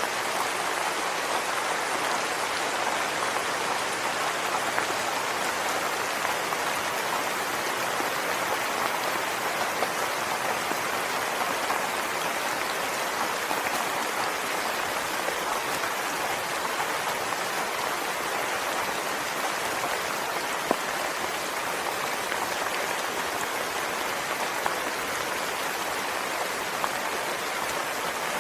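Soft rain falling steadily, an even hiss of many drops with a few sharper single drop taps, the clearest about two-thirds of the way through.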